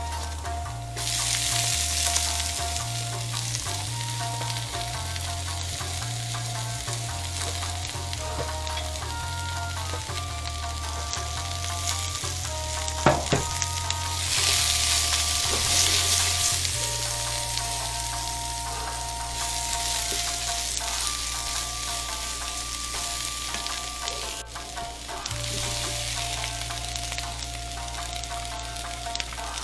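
Chopped cabbage and carrot strips sizzling as they are stir-fried in a hot frying pan, with the sizzle surging when the cabbage is tipped in about a second in and again in waves as the vegetables are stirred with a wooden spatula. A single sharp knock about halfway through.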